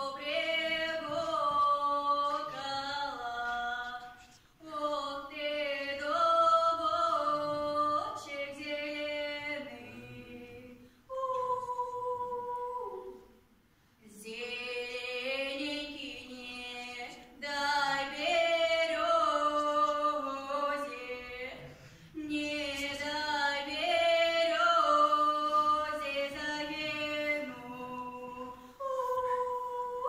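A woman singing an old Russian folk song solo and unaccompanied, in long held phrases with short pauses for breath between them.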